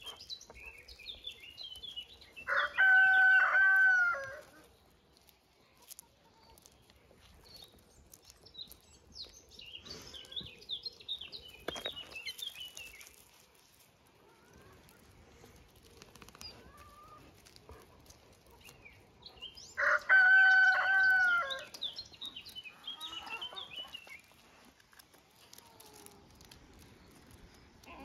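A rooster crowing twice, each crow a loud held call of about a second and a half that drops away at the end, the second coming about seventeen seconds after the first. Fainter high chirps come and go in between.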